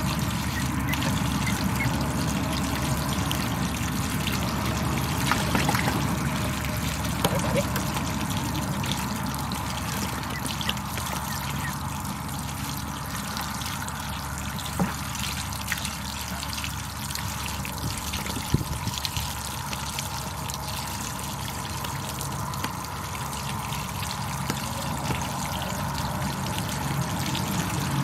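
Water from a garden hose pouring and trickling steadily into a plastic tub and the puddle around it, over a steady low hum.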